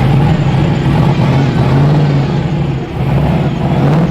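Supercharged V8 engine running steadily at a raised speed, its pitch wavering slightly, easing off briefly about three seconds in and picking up again near the end.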